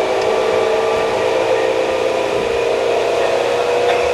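Tokyu 8500 series electric train's traction motors running under power while accelerating, heard from inside the car: a loud, steady whine with several held tones over a rumbling rail noise.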